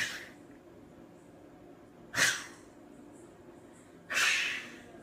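A person sneezing three times: short, sharp, breathy bursts about two seconds apart, the last one longer.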